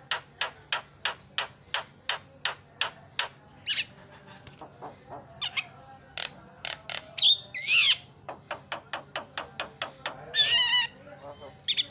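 Javan myna calling: a fast, even run of sharp chips, about four a second, then scattered squawks and a looping whistle that rises and falls. A second run of chips follows, then a harsh squawk near the end.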